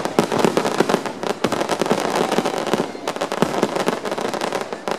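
Aerial fireworks bursting overhead: a dense run of rapid pops and crackles, easing briefly around three seconds in before picking up again.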